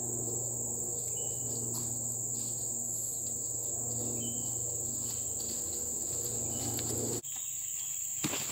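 Steady high-pitched drone of rainforest insects. Under it runs a low steady hum that stops abruptly about seven seconds in.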